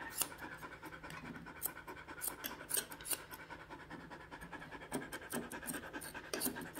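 Curved grooming shears snipping through a dog's foot hair in short, irregular metallic snips, sometimes several a second.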